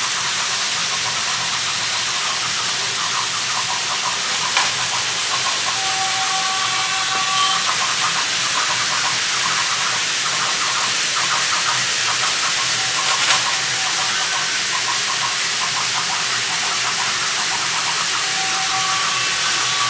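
Steam-train sound effect: a steady, loud hiss with faint rattling clicks, and a short whistle-like chord of a few notes sounding about six seconds in, again around thirteen seconds, and near the end.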